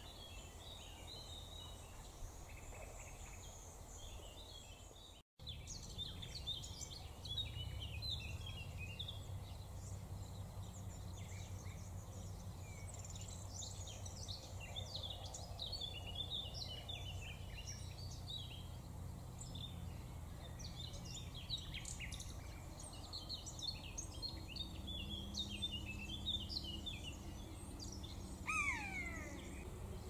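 Small songbirds chirping and singing busily over a low steady rumble. Near the end comes one loud call falling in pitch, the call of a common buzzard.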